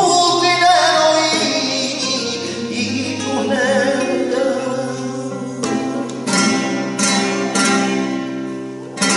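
Live flamenco: a male cantaor sings wavering, ornamented held notes over a flamenco guitar for the first few seconds, then the voice stops and the guitar carries on alone with a run of sharp strummed chords about every half second.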